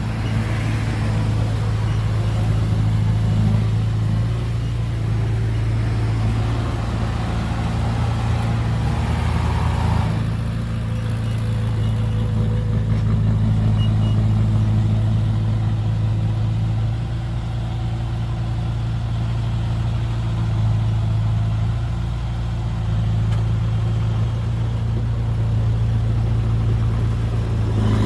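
Diesel engine of heavy earthmoving machinery running with a steady low drone, its level rising and easing slightly now and then.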